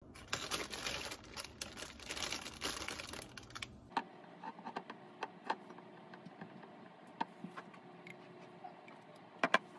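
Plastic bread bag crinkling for about four seconds. Then come scattered light clicks and scrapes of a metal spoon in a glass jar of chocolate spread and on toast, with two sharp clicks near the end.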